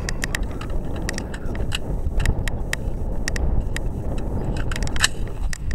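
Wind rumbling on the microphone, with scattered light metallic clicks and rattles as an AR-15 rifle is handled.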